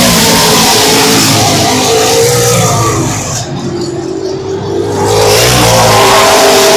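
A pack of Late Model Sportsman stock cars racing past at full throttle, engines loud and close. About halfway through the sound fades as the field goes down the far straightaway, then builds again as the cars come back around.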